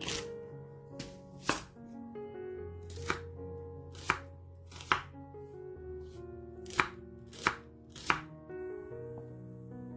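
Chef's knife chopping garlic scapes and then an onion on a wooden cutting board: about nine sharp knocks of the blade meeting the board at an uneven pace, over soft background music.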